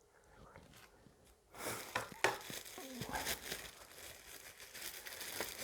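Packaging crinkling and rustling as accessories are handled and unwrapped, with many small sharp crackles; it starts about a second and a half in after a near-silent moment with a few faint clicks.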